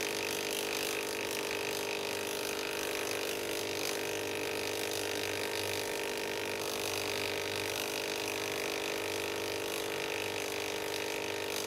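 Tattoo thermal stencil copier running, its feed motor giving a steady hum with a held tone while the transfer sheet is drawn through the rollers.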